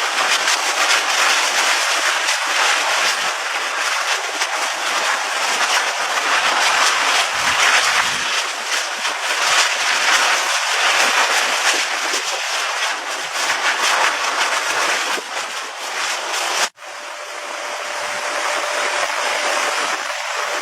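Loud, steady rushing noise with a gritty texture. It cuts out abruptly about 17 seconds in and returns with a faint steady hum underneath.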